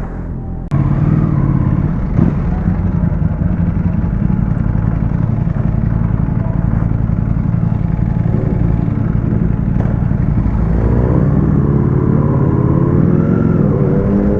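Ducati Panigale V4S's V4 engine running as the bike rides along, heard from the rider's mic; it gets suddenly louder under a second in, and from about ten seconds in the engine note rises and falls as it revs through the gears.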